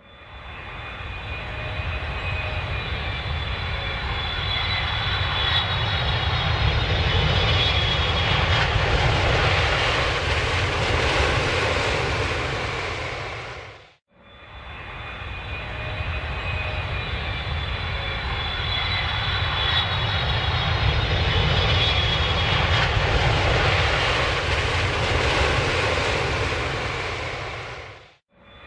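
Airplane engine noise: a low rumble with a high whine, swelling for several seconds and then fading out completely, heard twice in a row as the same recording repeats.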